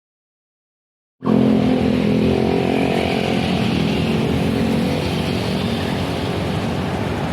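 Bus engine running steadily at close range, cutting in abruptly about a second in.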